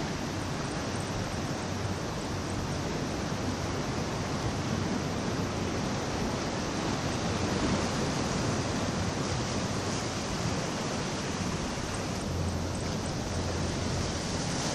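Steady wash of sea water against the rocks of a harbour jetty, mixed with wind, as an even rushing noise that swells slightly about halfway through.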